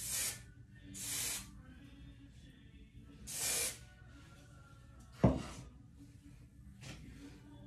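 Three short hisses from an aerosol hairspray can, each about half a second long, then a single sharp knock about five seconds in.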